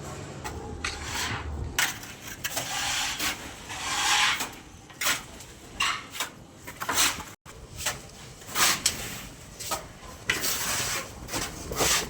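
Irregular rasping, scraping strokes on a hard surface, about a dozen of them, some short and some lasting about a second.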